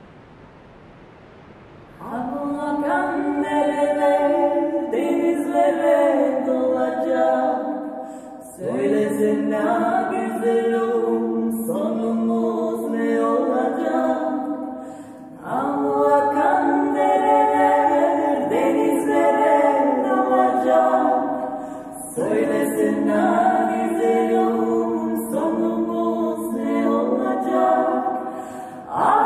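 Three women's voices singing unaccompanied in close harmony: a Turkish folk song from the Black Sea region, sung in the local dialect. The singing comes in about two seconds in, after a faint hiss, and moves in long phrases with short breaks between them about every six to seven seconds.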